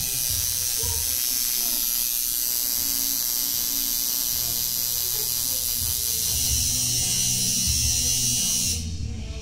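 Coil tattoo machine buzzing steadily while tattooing, cutting out briefly near the end.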